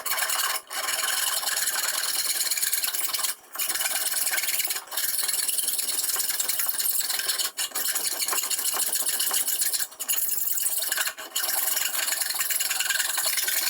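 Hand file rasping across a new, slightly oversized pin to file it flush in a gear shifter. The strokes run in long, near-continuous stretches broken by brief pauses every two to three seconds.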